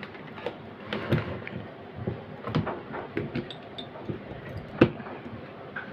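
Handling noise from an aluminium-cased inverter being shifted on a tabletop with its cables dragged: a scattered series of light knocks and clicks, the sharpest a little under five seconds in.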